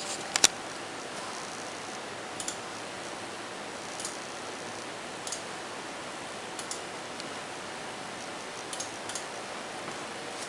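Computer mouse button clicks, about ten spread through, several in quick pairs, the loudest pair just after the start, over a steady hiss.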